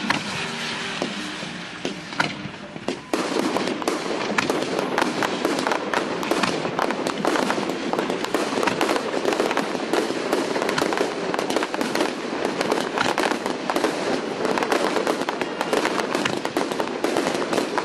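Professional fireworks display: aerial shells and launches bursting with sharp cracks and bangs, scattered at first, then from about three seconds in a dense, continuous barrage of crackling and popping.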